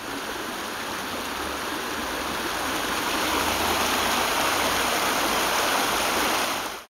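Flowing water rushing steadily, growing slightly louder, then cutting off suddenly near the end.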